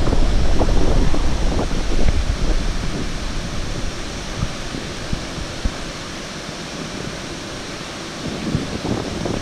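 Steady rushing of a small rocky mountain river, with wind buffeting the microphone for about the first two seconds.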